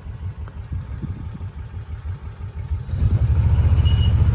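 Kawasaki Mule 4010's liquid-cooled V-twin engine running with an even beat, now firing on both cylinders after a broken spark plug was replaced. About three seconds in it gets clearly louder and holds there, as if throttle is given or the machine pulls away.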